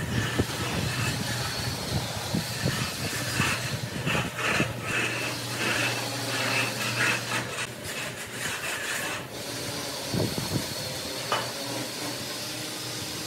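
Wet sand-and-cement screed being scraped and smoothed with a straight bar, a rough repeated scraping hiss, over a steady low hum that stops about eight seconds in.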